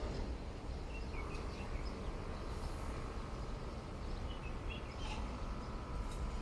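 Steady ambient background noise with a low rumble, and faint short bird chirps here and there. A faint steady tone sounds through most of it.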